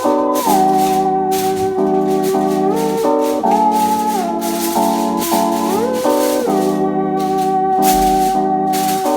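Background music: an upbeat organ-like melody over a steady maraca shaker rhythm.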